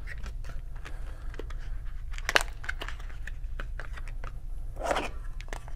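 AA batteries being pressed one by one into a plastic battery case: a scatter of small clicks and taps, with one louder snap about two and a half seconds in.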